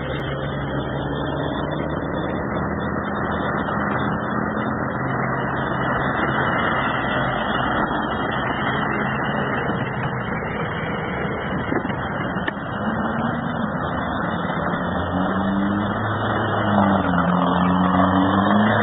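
Heavy truck engine running under load as it drives through floodwater, over a steady rushing noise. From about two-thirds of the way in the engine note wavers and rises and grows louder as the truck comes up out of the water toward the camera.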